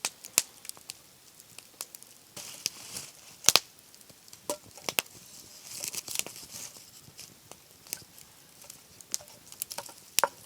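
Rehydrated egg crystals cooking in a camp frying pan: scattered sharp clicks and taps of a utensil against the pan or cup, with short bursts of sizzling.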